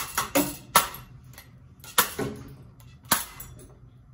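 Sharp blows smashing a cheap ceiling fan: three quick strikes in the first second, then two more about a second apart, each with a brief ringing tail.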